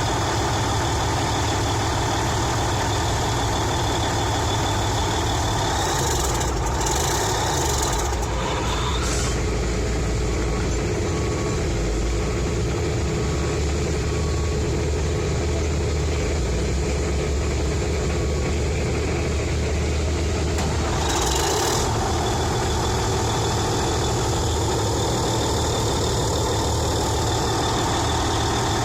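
Heavy diesel engine of a Cat 992-C wheel loader running steadily under way, its note changing about eight seconds in and again about twenty-one seconds in, with a deeper rumble in between.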